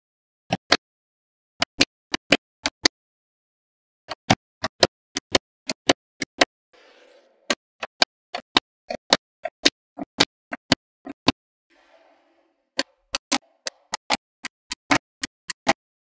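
Small magnetic balls clicking as they snap onto a wall built of magnetic balls. The clicks are sharp and separate, some single and some in quick runs, with dead silence between them.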